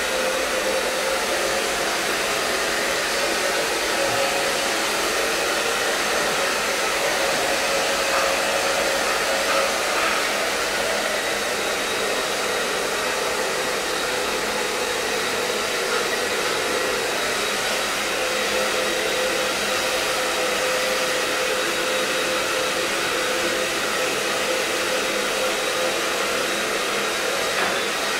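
Handheld electric hair dryer running steadily on one setting: an even rush of blown air with a faint, steady whine from its motor.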